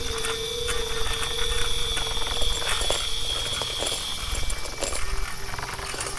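Wind buffeting the microphone while a mass of inflated plastic bags rustles and crackles in it. A steady two-note tone holds through the first four seconds or so, then stops.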